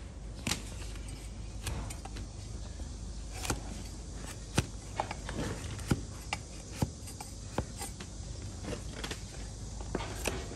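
Donkey hoof being cut and trimmed: irregular sharp clicks and snaps of tough hoof horn being pared, about a dozen over several seconds, a couple much louder than the rest.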